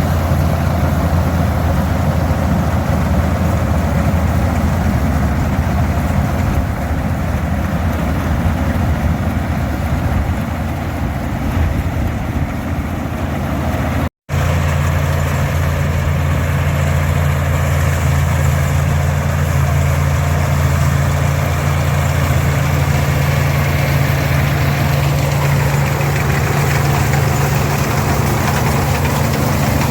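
Farmall 460 tractor's 282 diesel engine running steadily, pulling and powering an International 82 pull-type combine that is harvesting oats, a mix of engine drone and combine machinery. The sound drops out completely for an instant about 14 seconds in, then carries on with a slightly different tone.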